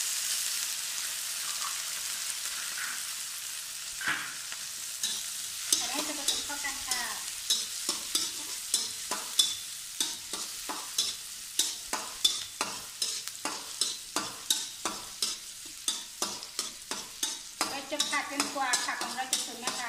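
Diced vegetables sizzling in hot oil in a steel wok. From about five seconds in, a slotted metal spatula scrapes and clacks against the wok about twice a second as they are stir-fried.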